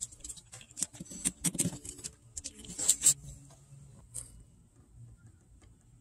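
Small clicks, taps and scrapes of copper ring lugs being fitted onto the threaded terminal studs of a battery quick-disconnect switch, loudest about three seconds in and dying away about a second later.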